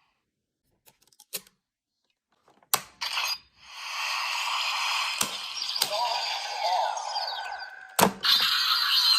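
Plastic clicks of a Kamen Rider Gaim CSM Lockseed toy being worked, then its recorded electronic sound effect playing from the toy, with sweeping pitches and further sharp clicks about two, three and five seconds into it.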